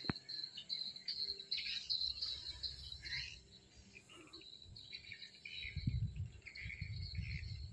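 Steady outdoor chorus of insects: a continuous high trill with chirping around it. From about six seconds in, low thumps and rumbling come in underneath.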